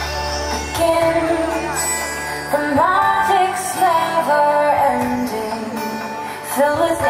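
Music with a woman singing a held, gliding melody over instrumental backing.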